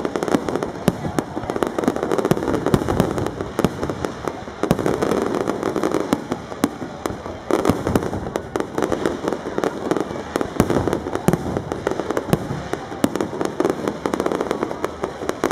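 Aerial fireworks shells bursting in a dense, unbroken run of bangs and crackles, many per second.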